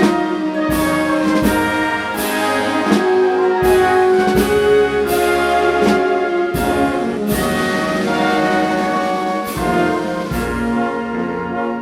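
Processional brass band playing a slow Holy Week march: trumpets and trombones hold sustained chords over a steady beat of drum and cymbal strokes about every three quarters of a second. The beat drops out near the end while the brass keeps sounding.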